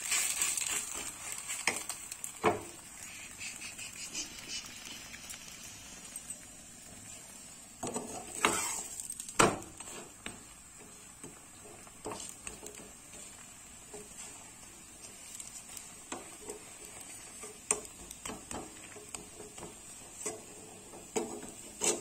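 Spatula tapping and scraping on a tawa as a flatbread is pressed and turned while it fries in a little oil, over a faint sizzle. A handful of scattered knocks, the loudest a little under halfway through.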